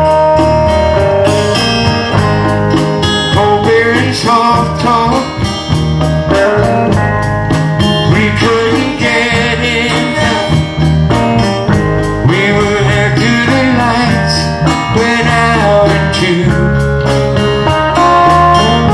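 A song with a singer over guitars, bass and a steady drum beat, in a country-rock style.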